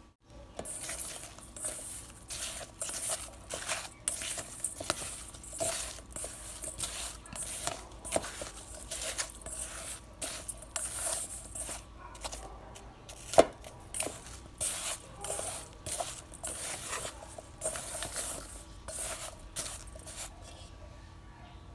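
Spatula stirring diced apples coated in sugar, cinnamon and flour in a stainless steel bowl: repeated scraping strokes against the metal, with one sharper knock on the bowl a little past the middle.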